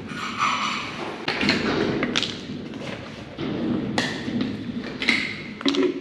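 Irregular knocks, thumps and metal clanks of milking-parlour equipment being handled, several a second, over a steady background hiss.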